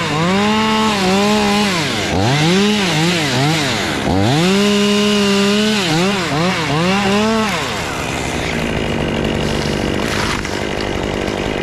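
Chainsaw cutting at full throttle in repeated bursts, the engine pitch dropping and climbing again between them. About seven and a half seconds in the revving stops, leaving a steadier, quieter hum.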